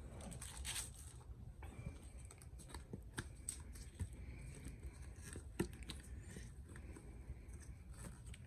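Faint rustling and scattered soft clicks of a flexible silicone mold being flexed and peeled off a cured epoxy resin casting by gloved hands.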